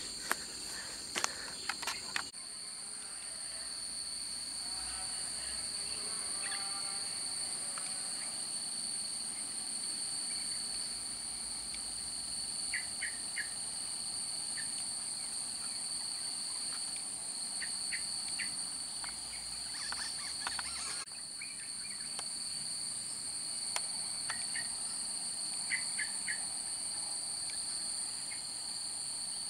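Steady high-pitched drone of insects, two unbroken high tones, with a few short chirps now and then. A few sharp knocks in the first two seconds.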